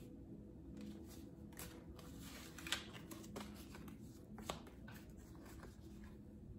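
Tarot cards being picked up and handled on a cloth-covered table: faint rustling with a few light card snaps, the sharpest a little before the middle and another a couple of seconds later, over a low steady room hum.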